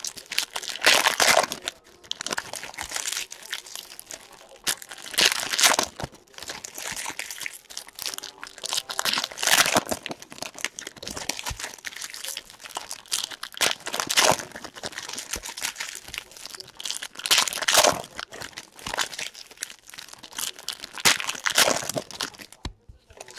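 Foil trading-card pack wrappers crinkling and crumpling in the hands, with loud bursts of crackling every few seconds.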